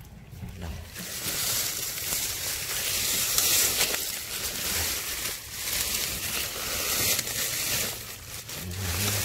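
Leaves and branches rustling and scraping close to the microphone as someone pushes through dense brush.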